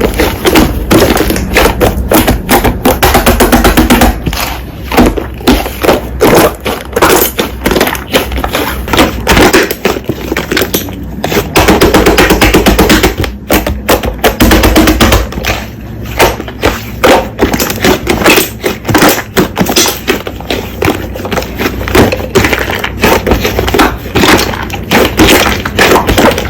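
Slime being squeezed and pressed by hand, making dense, irregular crackling clicks and pops, over background music.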